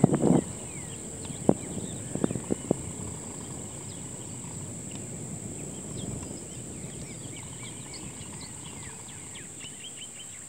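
Marsh ambience: a steady high insect drone with scattered short bird chirps. A few short thumps and clicks come in the first three seconds.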